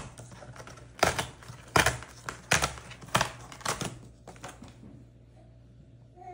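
Tear strip being ripped along a corrugated cardboard shipping box in about six short, sharp rips over the first four seconds, followed by quieter rustling of the cardboard.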